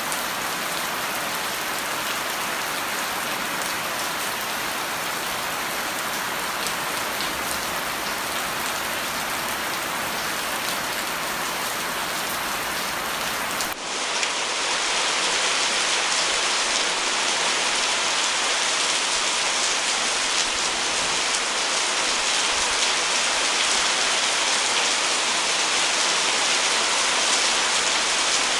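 Steady rain falling on dense tropical garden foliage, a constant hiss of drops on broad leaves. About halfway through it cuts to a slightly louder stretch of rain.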